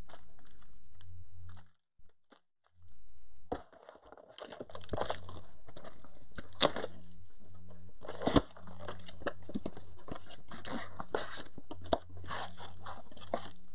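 Cardboard trading-card blaster boxes and foil card packs being handled: crinkling and rustling, with two sharp clicks a few seconds in.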